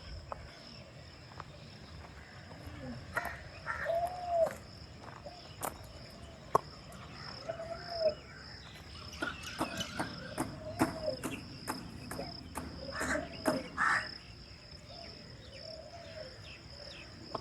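Outdoor park ambience dominated by a steady, high-pitched drone of insects. Short rising-and-falling calls come every few seconds, with scattered sharp clicks.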